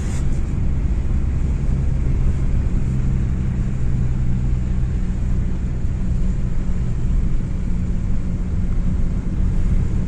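Vehicle engine running with a steady low hum, heard from inside the cab while driving.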